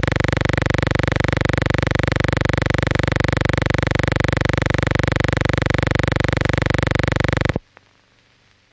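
Loud, steady buzz with a fast, even pulse, the kind of noise heard when a silent film is run through a sound reader. It cuts off abruptly near the end, leaving near silence.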